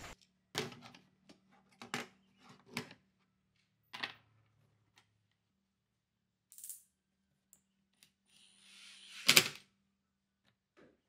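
Light clicks and taps of screws and plastic undermount drawer-slide clips being handled and set on a plywood drawer bottom, with a louder knock about nine seconds in.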